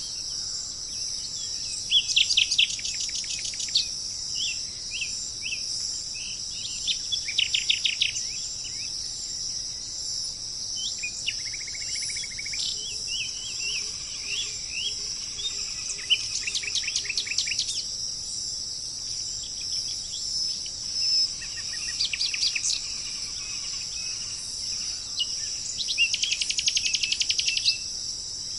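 Birds singing in bursts of rapid, repeated chirping trills, several times over, above a steady high-pitched drone of insects.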